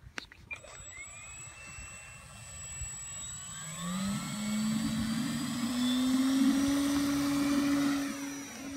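Night Radian electric glider's motor and propeller running under power as the glider climbs out after a hand launch: a buzzing whine that rises in pitch about four seconds in, holds steady, then fades a little near the end.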